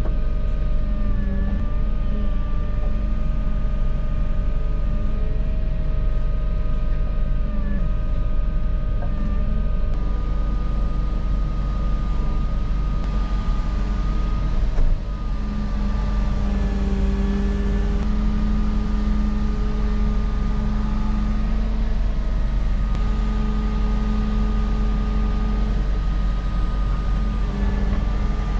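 Volvo EW160E wheeled excavator running steadily, a low diesel rumble under several held whining tones that shift slightly in pitch as the machine works, with one sharp knock about halfway through.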